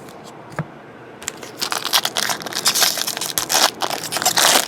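Crinkling of a trading-card pack wrapper being handled. It starts about a second in and runs as a dense, loud crackle until it stops abruptly at the end.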